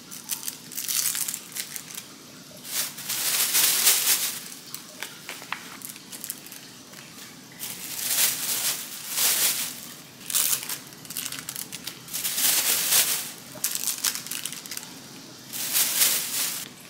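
Thin plastic crinkling in repeated bursts: the film wrappers being peeled off imitation crab sticks and the plastic bag being handled as the sticks go in to be coated with frying mix.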